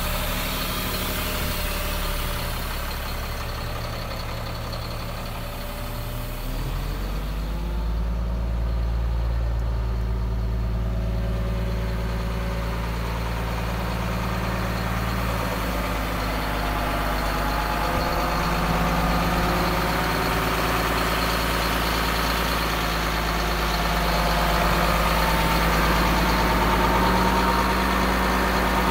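Diesel engine of a 2007 Sterling LT8500 dump truck running at idle; about six and a half seconds in, its speed rises and then holds steady at the higher speed.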